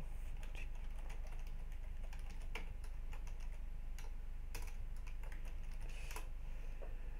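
Computer keyboard typing: irregular keystrokes, closer together in the first second or so and sparser after, over a steady low hum.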